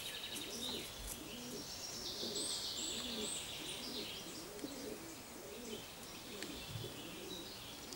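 A dove cooing over and over in low, soft, arching phrases, with small songbirds chirping and whistling high above.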